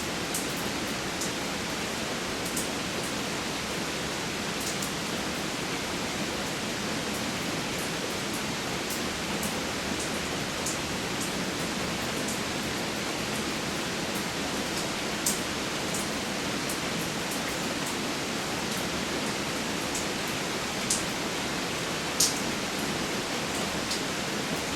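Steady rain falling, with scattered sharp drops ticking close by; three louder drops land in the second half.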